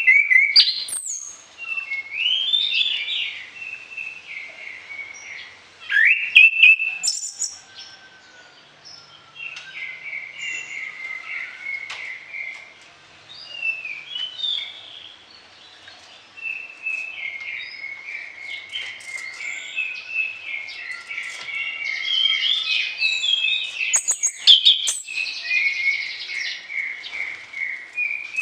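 Orange-headed thrush singing in full voice: a long, varied song of quick whistled phrases, coming in bursts with short pauses between, with a few sharp clicking notes among them.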